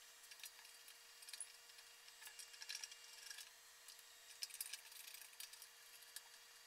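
Faint scattered clicks and scrapes of a screwdriver turning small screws on a mechanical thermostat's metal mounting plate, fixed to a steel drum, over a faint steady hum.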